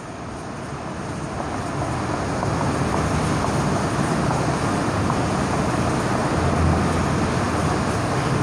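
Steady rumbling background noise, swelling over the first two seconds and then holding level.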